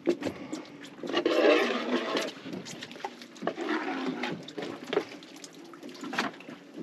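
Water splashing and sloshing, loudest in a rush about a second in, with a scatter of quick taps and slaps from small baitfish (threadfin herring) flapping on a fiberglass boat deck.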